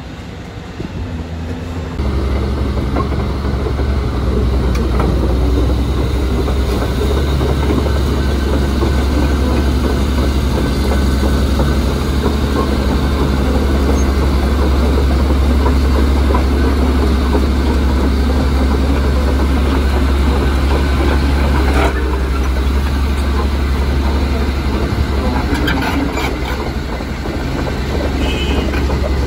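Caterpillar 330D2 excavator's diesel engine running steadily, louder from about two seconds in, with a few sharp metallic clanks near the end.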